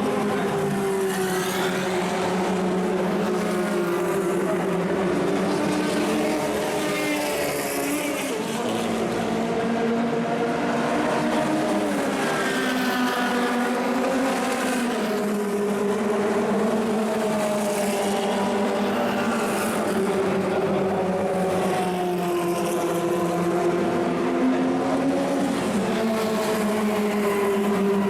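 Engines of several 1960s cigar-shaped F2 and F3 formula race cars running at once. Their pitches rise and fall as they rev up and change gear, overlapping without a break.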